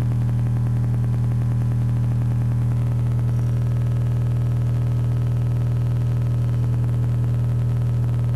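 Steady low bass test tone (40 Hz) playing through a Rockford Fosgate P3 12-inch subwoofer in a sealed fiberglass enclosure, driven by a Punch PBR500X1 amplifier whose gain is being set just below clipping.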